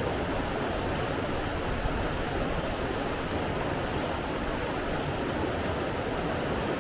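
Steady rushing water, a continuous even wash of sound with no breaks or distinct events.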